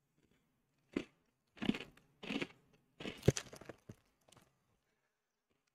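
Someone chewing a crunchy pizza-flavoured Shapes savoury cracker, about five separate crunches over a few seconds.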